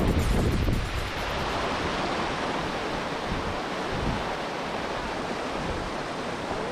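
Wind buffeting the camera microphone: a steady rushing hiss, with heavier low rumbling gusts in the first second.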